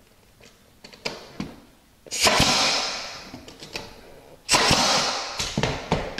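Pneumatic nail gun firing twice, about two and a half seconds apart, driving nails into baseboard trim; each shot is a sharp bang followed by a trailing hiss. A few light taps come about a second in, before the first shot.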